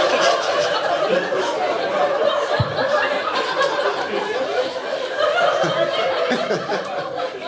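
Audience laughing at a comedy punchline, many people at once, slowly dying down toward the end.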